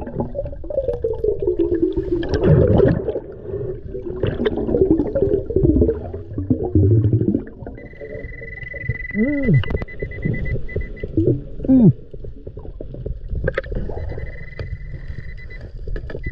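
Underwater gurgling with wavering, swooping pitched sounds. A steady high beep comes in about eight seconds in, holds for about three seconds, and returns near the end: the PulseDive metal detector signalling a target under its coil.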